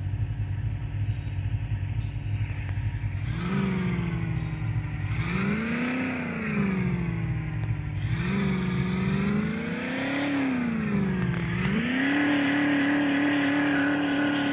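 Land Rover Defender engine idling low, then revved up and down several times with one front wheel lifted off the ground, settling into a steady higher rev near the end.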